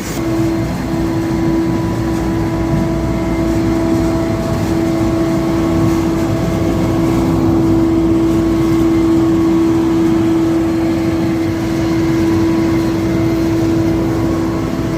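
Truck-mounted duct-cleaning vacuum running steadily, a loud, even machine drone with a constant hum tone.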